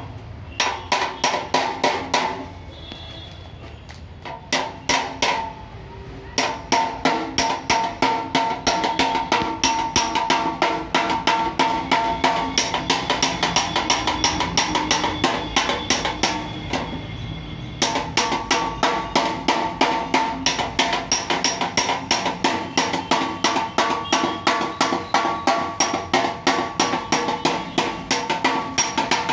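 A hand hammer striking the metal front bumper of a Mahindra Bolero in quick, even blows, about four a second, each with a metallic ring, to beat out accident damage. The hammering stops briefly twice.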